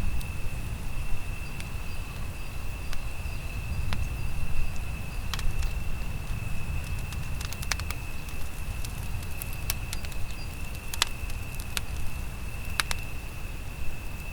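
Wood fire burning: irregular sharp crackles and pops over a low steady rumble, with an unbroken high-pitched tone throughout.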